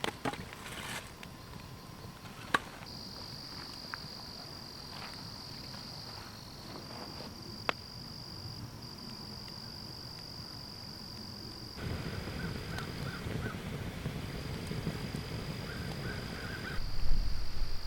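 Insects droning steadily at a high pitch, with a couple of sharp clicks. About two thirds of the way in a louder rustling background sets in, with short quick chirps over it.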